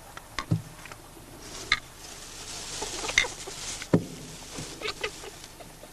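Hen and her chicks moving in a straw nest: straw rustling, with a few short low clucks and scattered light taps.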